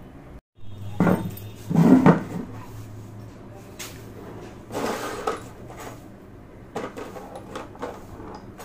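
Handling noise as parts and tools are moved about, with the loudest knocks about 1 and 2 seconds in, another about 5 seconds in, and light clicks and rattles near the end, over a steady low hum.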